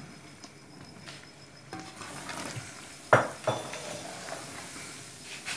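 Powdered mung dal pouring into a metal pot of ghee-roasted semolina, then a spoon stirring and scraping the mixture. The spoon knocks sharply against the pot with a ringing clank about three seconds in, and once more just after.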